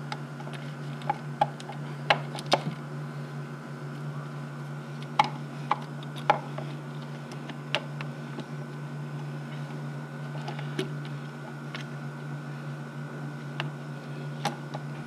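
Hands working hoses, clips and fittings in a 1988 Corvette engine bay: scattered sharp clicks and light taps of plastic and metal parts, the loudest around two seconds in and again between five and six and a half seconds, over a steady low hum.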